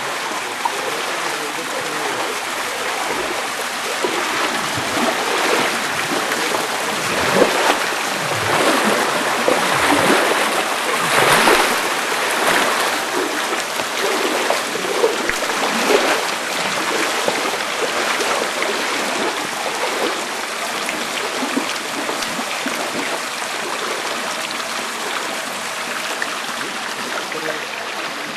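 Water running through a concrete coffee washing channel, a steady rushing flow with splashing that gets busier and louder through the middle.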